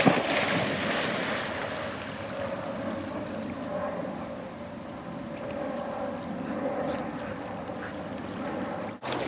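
A Chinook dog splashes into a pond, then swims out through the water, with continuous splashing and sloshing.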